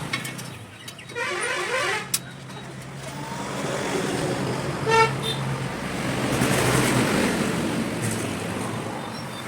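A car engine running steadily, swelling louder in the second half, with a short horn-like toot about halfway through and a sharp click about two seconds in.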